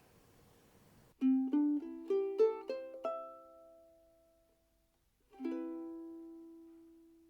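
Sumi UK-T3M all-mahogany soprano ukulele played fingerstyle: about a second in, a quick rising run of single plucked notes, then after a short pause one final chord left to ring out and fade.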